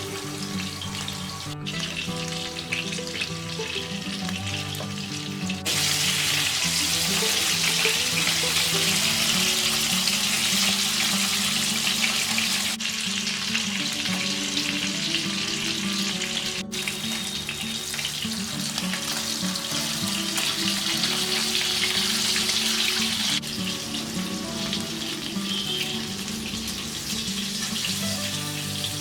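Food frying in hot mustard oil in a pan, a dense steady sizzle. It gets much louder about six seconds in and changes level abruptly several times later.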